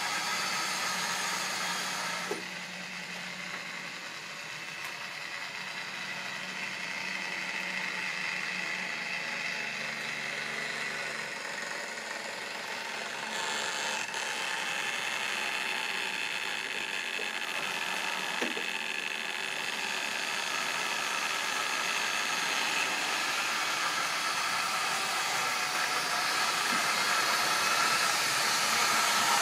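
OO gauge model trains running: small electric locomotive motors whirring and wheels running on the track, with an occasional light click. It grows louder toward the end as a long tank-wagon train passes close by.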